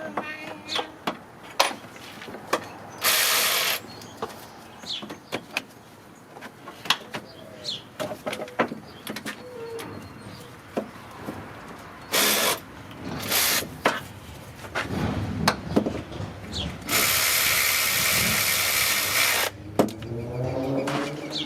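Tool work on an engine: many scattered metal clicks and clinks, broken by short loud bursts of a ratcheting or power tool, with a longer burst of about two and a half seconds near the end.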